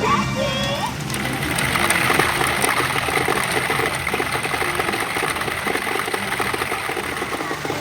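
Steel pachinko balls clattering in a fast, continuous rattle through a P Super Umi Monogatari IN Okinawa 6 pachinko machine, starting about a second in after the machine's electronic music.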